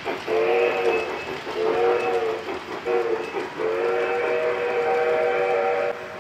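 Model train's sound-system whistle: a multi-tone chime whistle blown twice briefly, then once long for over two seconds, over the steady rumble of trains running on the layout.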